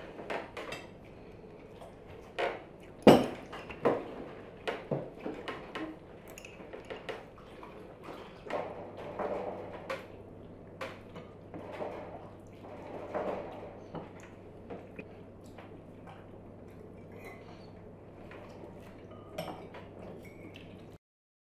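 Knives and forks clinking and scraping on china plates while fried fish is cut and eaten, with scattered sharp clinks, the loudest about three seconds in. The sound cuts off suddenly near the end.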